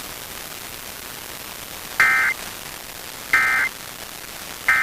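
Steady static hiss, then about two seconds in three short, loud bursts of buzzy digital data tones just over a second apart: the Emergency Alert System end-of-message code that closes the alert.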